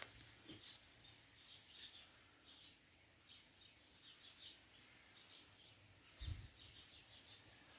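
Faint, repeated short high chirps of a fledgling songbird calling for its parent, with a brief low thump about six seconds in.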